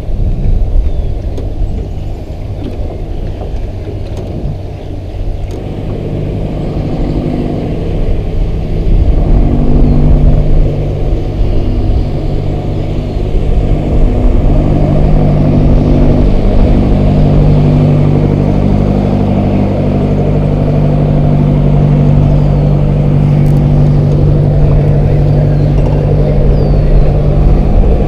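Boat engine running with a steady low hum, getting louder about nine seconds in and again a few seconds later, over a low rumble.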